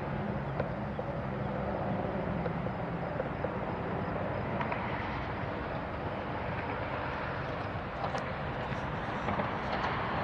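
Diesel-electric freight locomotives running close by, a steady low engine drone that is plainest in the first few seconds.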